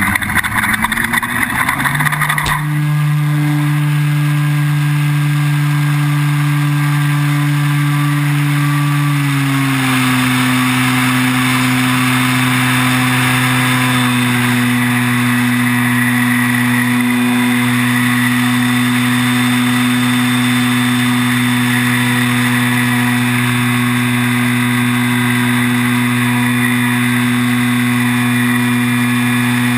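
Electric RC plane's brushless motor and propeller at full power, heard from a camera mounted on the plane. For about the first two and a half seconds the wheels rattle over rough asphalt on the takeoff roll; the rattle stops suddenly at liftoff. After that comes a steady drone with wind hiss, its pitch settling slightly lower about ten seconds in.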